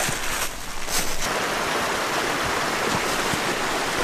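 Mountain stream rushing in a steady hiss of running water, which comes up about a second in.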